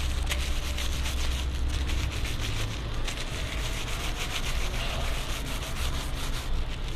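Street noise heard while walking: a low rumble, heaviest in the first three seconds, under close, quick rubbing and scuffing sounds throughout.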